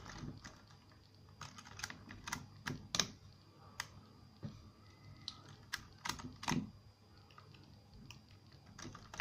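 A pick rake working the keyway of an Ingersoll SC71 rim cylinder under tension: irregular light metallic clicks and scrapes as the rake jiggles over the pins, the loudest click about three seconds in.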